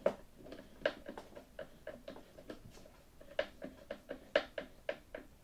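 Irregular small clicks and ticks from a hand driver and screws as an engine mount is fitted and snugged onto a model airplane's firewall, the screws being left loose rather than tightened down.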